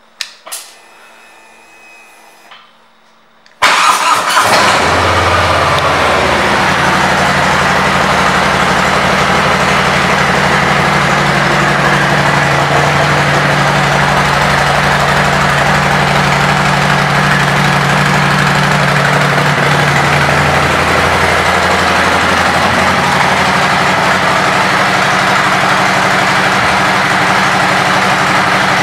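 2018 Harley-Davidson Softail Slim's Milwaukee-Eight 107 V-twin with aftermarket Cobra exhaust pipes, starting suddenly after a few quiet seconds and then idling steadily and loudly.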